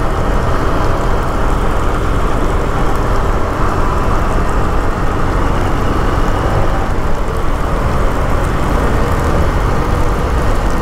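Wind rushing over the microphone of a moving motorcycle, a steady heavy noise with the engine running faintly underneath.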